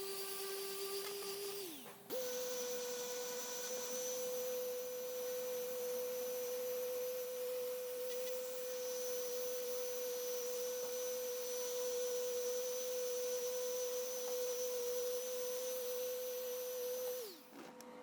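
High-speed electric rotary tool running with a steady whine. It spins down with a falling pitch about two seconds in, restarts at a higher speed, runs evenly, then winds down again near the end.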